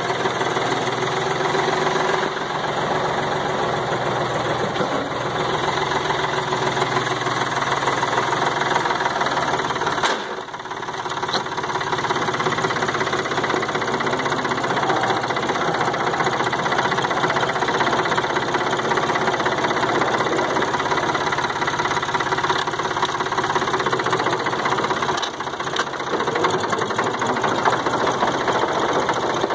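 A late-1960s farm tractor's engine running steadily, easing off briefly about ten seconds in and again near the end.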